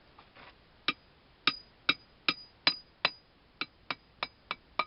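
A hammer striking a piece of tubing held against a Wilton vise's end cap to drive the cap out: about a dozen sharp blows with a short ring after each, heavier ones first and then lighter, quicker taps.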